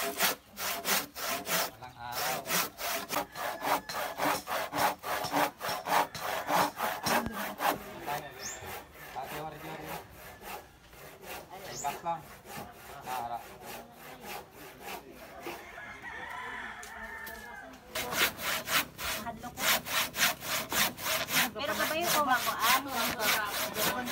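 A handsaw cutting by hand through a thick wooden beam, in quick, even back-and-forth strokes. The sawing stops for several seconds midway and starts again near the end.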